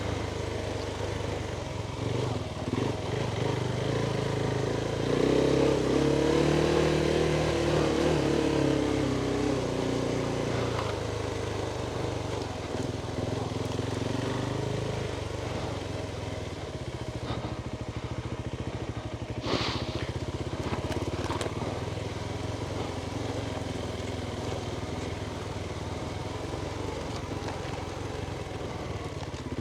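Adventure motorcycle engine running at low trail speed, the revs swelling up and easing back several times. There is a single sharp clack about two-thirds of the way through.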